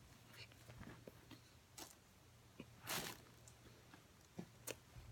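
Faint chewing of frozen oven-baked cornstarch chunks: scattered soft crunches and mouth clicks, with one louder noisy burst about three seconds in.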